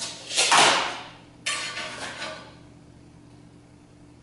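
A tape measure blade retracting into its case with a quick whirr, then a sharp knock a moment later as the tape is set down on the workbench.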